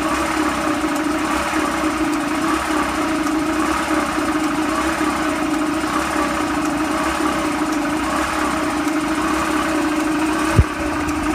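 Air compressor running steadily while pumping up its tank from empty, with an even hum. A single brief thump comes near the end.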